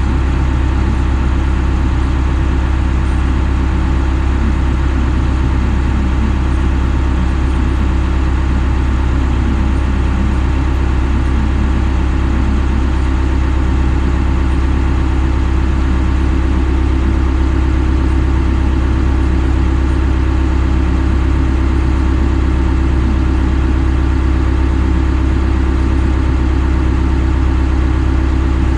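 A large engine idling steadily at an even speed, with a strong low hum.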